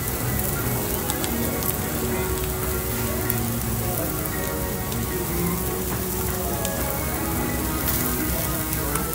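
Steak and shrimp sizzling on a tabletop Korean barbecue grill: a steady hiss dotted with small crackles. Background music plays under it.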